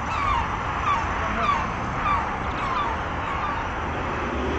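Birds calling: a string of short, falling calls about every half second over steady background noise.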